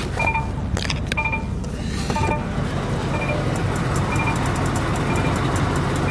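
Semi-truck's low air pressure warning beeping about once a second over the idling diesel engine, the sign that brake system air pressure is below the safe level. About two seconds in, a louder steady rushing noise comes up beneath the beeps.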